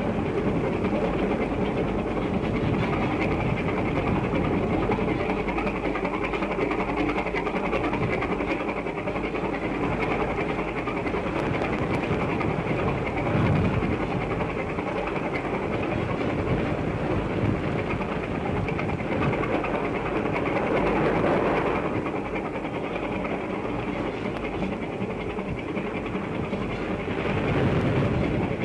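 Steady rumbling noise of a motor lifeboat under way at sea, engine and sea noise blended together.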